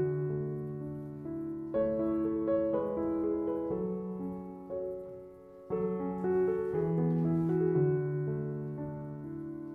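Background piano music, with new phrases entering about two seconds in and again near six seconds.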